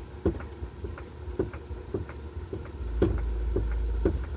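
A jack being pumped to raise the engine: a steady series of short clicks, about two or three a second, with a low rumble about three seconds in.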